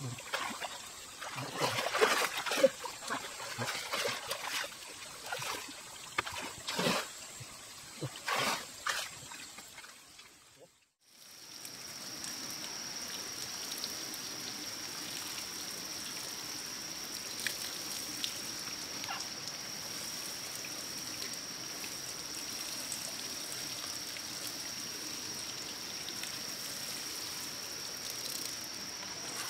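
Water sounds: irregular splashes and knocks for about ten seconds, then, after a brief gap, a steady trickle of running water with a constant high-pitched whine over it.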